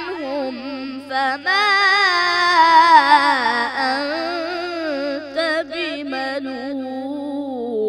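A boy's voice in melodic Quran recitation (tajweed), singing long, ornamented phrases whose pitch wavers and bends, with one short breath about a second and a half in.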